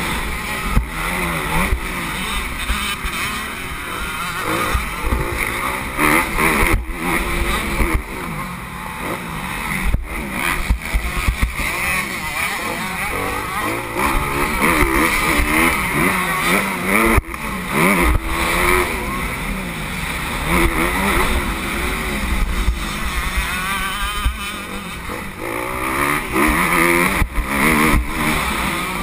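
Motocross bike engine heard from a camera mounted on the bike, revving up and falling back over and over as the rider works the throttle and gears, with a few sharp knocks along the way.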